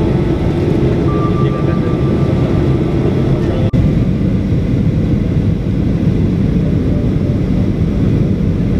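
Steady cabin noise of a Boeing 737-800 on descent: its CFM56 engines and the rush of air heard from a window seat over the wing, with a faint steady whine. The sound breaks off for an instant a little over a third of the way in.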